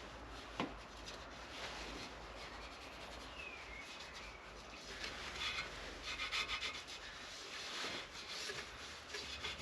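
Faint rubbing and scraping of grease being worked by hand into a part of a car's front strut assembly, with a few light clicks and a quick run of small ticks about five to seven seconds in.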